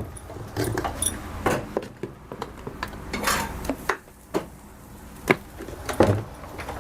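Metal cooking utensils and dishes clattering and clinking in irregular knocks, a few ringing briefly, with the sharpest strikes near the end.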